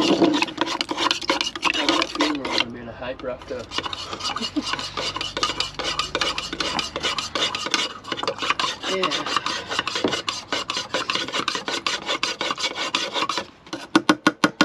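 A spoon stirring powdered Kool-Aid drink mix into water in a cup, scraping against the cup in fast, repeated strokes, several a second, with a short pause near the end.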